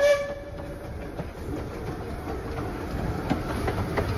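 The steam whistle of a 15-inch-gauge steam locomotive fades out within the first second. Then the locomotive and its coaches roll past with a steady rumble and scattered clicks of wheels over the rail joints, slowly growing louder.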